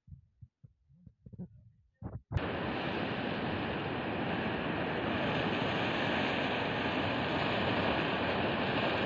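Gravel debris flow sliding down a riverbed, heard as a steady rushing noise that starts abruptly about two seconds in, after a few faint low bumps.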